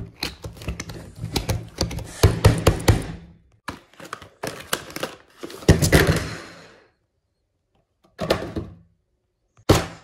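Small cardboard puzzle-cube boxes handled and tossed onto a table: a quick run of knocks, taps and thuds as they land and tumble, with a longer sliding rush about six seconds in. Two more short knocks follow, with dead silence between them.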